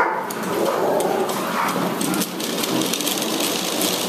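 Dogtrotter slatmill's slat belt rolling under a trotting Rottweiler, a steady rattling run of many small clicks.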